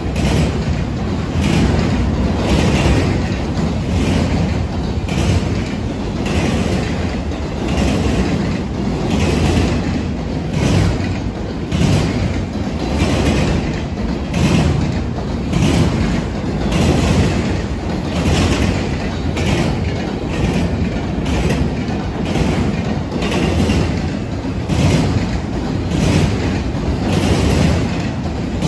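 Double-stack intermodal freight train's container well cars rolling past at steady speed: a continuous low rumble with a clickety-clack of wheels striking rail joints about once or twice a second.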